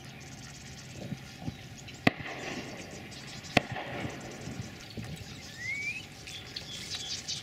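Two shotgun shots about a second and a half apart over rustling in the reeds, the second shot trailing a short echo. A short rising whistle sounds near the end.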